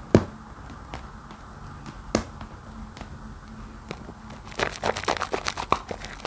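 Soap being lathered in thick soapy foam: wet crackling and popping, with a sharp snap just after the start, another about two seconds in, and a dense run of crackles from about four and a half seconds.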